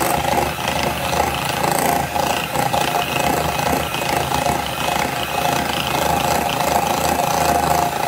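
Electric hand mixer running steadily, its beaters whisking a creamy mixture in a glass bowl.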